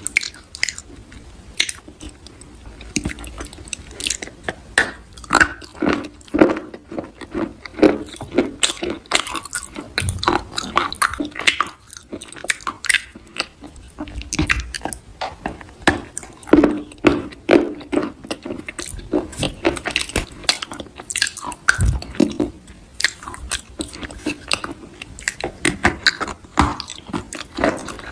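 Close-up crunching and chewing of something crisp: dense, irregular crunches several times a second, with short pauses between bites.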